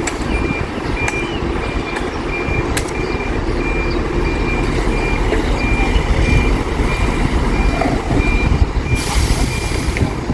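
A cooking-gas delivery truck's reversing alarm sounding a steady run of evenly spaced high beeps over the truck's engine rumble as it backs up. The beeping stops near the end, where a short burst of hiss is heard.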